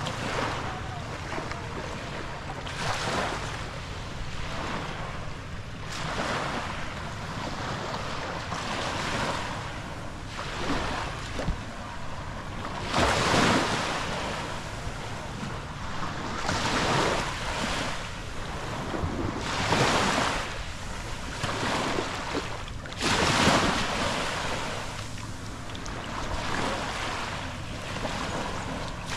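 Small waves washing in on a sandy shore, swelling and fading every few seconds, with wind buffeting the microphone.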